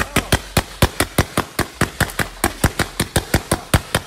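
Consumer multi-shot firework cake firing a rapid, even volley of sharp bangs, about seven shots a second.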